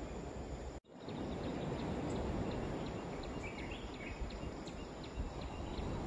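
Outdoor morning ambience: a steady rushing background noise with short high chirps repeating a few times a second and a brief bird call about three and a half seconds in. The sound drops out for an instant just under a second in.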